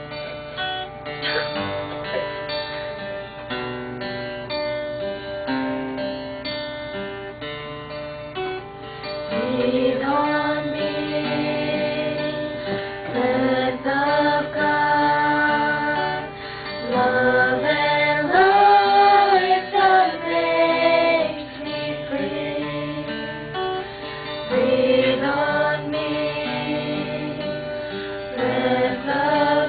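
Acoustic guitar playing an intro. About nine seconds in, a small group of women singers comes in and sings together over the guitar.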